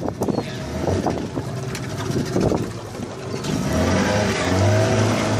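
Fishing boat's engine picking up about three and a half seconds in and then running steadily, louder, after irregular knocks and rustling of a net with floats being hauled aboard.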